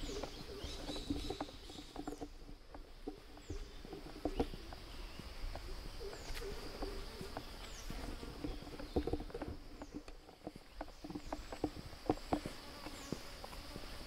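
Irregular footsteps on a dirt road under a steady high drone of insects. A short falling chirp repeats every couple of seconds.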